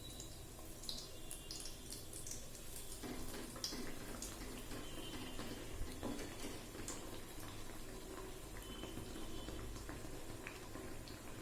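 Malpua frying in hot oil: a steady sizzle with scattered small crackles and pops.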